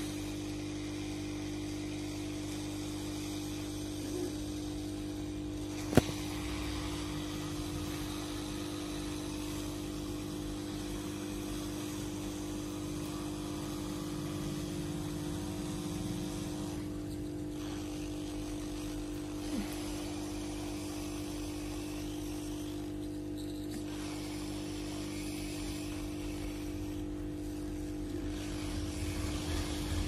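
Steady electrical hum holding one constant tone over a low rumble, with a single sharp click about six seconds in and a few uneven low knocks near the end.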